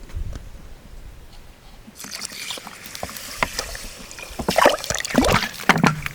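Water sloshing and splashing in a container as it is worked by hand, in irregular strokes mixed with small clicks. It starts about two seconds in and grows louder near the end.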